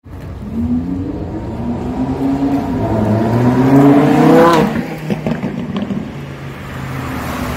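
Lamborghini Huracán's V10 engine accelerating past, rising in pitch and getting louder until it is closest about four and a half seconds in, then dropping in pitch as it moves away. A smaller car's engine follows, running steadily.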